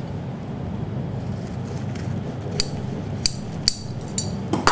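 Kitchen scissors snipping thin sheets of edible oblate film, a handful of short sharp snips mostly in the second half, over a steady low background hum.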